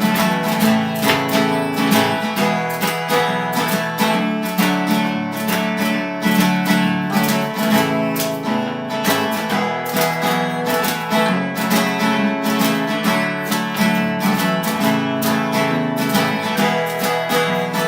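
Acoustic guitar strumming a steady rhythm through an instrumental break in a country song, with no singing.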